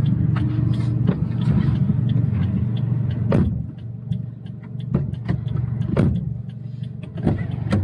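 Subaru WRX's engine running at a steady low rumble, heard inside the cabin, with several sharp knocks and clicks, about a second or so apart, over it.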